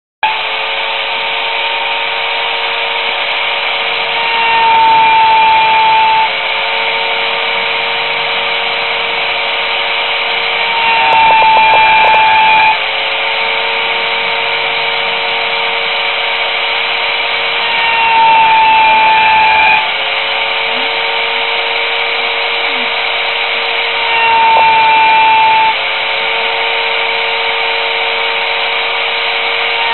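Homemade mini CNC router running: a steady motor whine that starts abruptly and grows louder for about two seconds roughly every six to seven seconds, in a repeating cycle.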